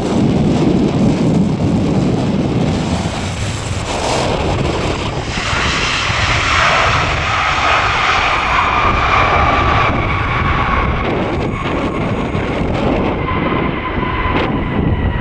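Boeing 737-800 jet engines (CFM56-7B26) running, with a high whine that falls slowly in pitch from about six seconds in. Strong wind buffets the microphone underneath.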